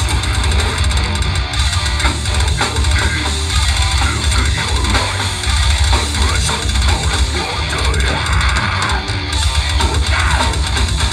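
A grindcore band playing loud, fast and dense: heavily distorted electric guitar and bass over a pounding drum kit.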